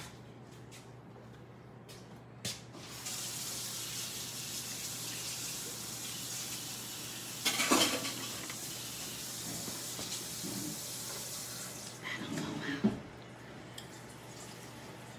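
Kitchen tap running steadily for about nine seconds, starting about three seconds in, with a louder clatter midway. A few knife taps on a cutting board come before it.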